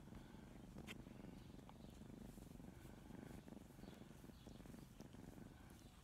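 Colorpoint cat purring steadily and softly, close up while being stroked, with one faint click about a second in.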